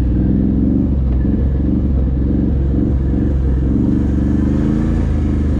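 Can-Am off-road vehicle's engine running under way: a steady low drone whose pitch wavers slightly with the throttle.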